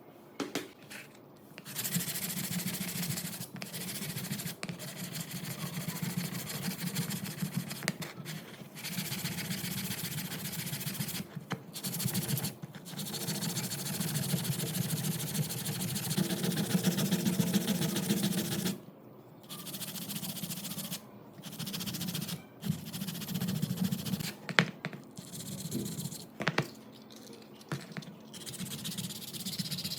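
Abrasive scraping on a rifle part during rust restoration, continuous from about two seconds in until about nineteen seconds, then in shorter bouts with brief gaps.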